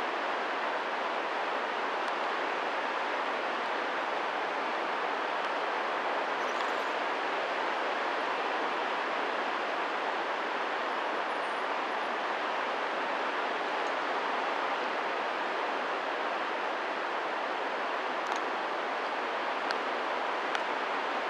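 Steady, even rushing noise of air in paramotor flight at altitude, with no distinct engine note; a few faint ticks near the end.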